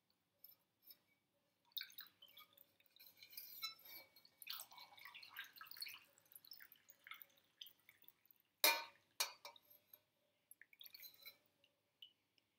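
Liquid brine trickling and dripping through a metal funnel into a glass jar, faint and irregular, then two sharp knocks about nine seconds in.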